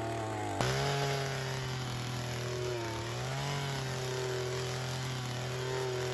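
Two-stroke gas earth auger running under load as it drills a fence-post hole. The engine note steps up about half a second in and sags briefly near the middle as the bit bites into the ground.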